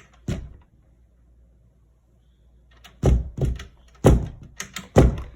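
Heavy thuds of something knocked against a wall or door: one knock near the start, then about four knocks in quick succession from about three seconds in.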